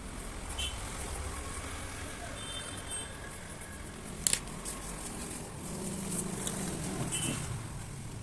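Steady low background rumble with a few sharp clicks, the loudest about four seconds in.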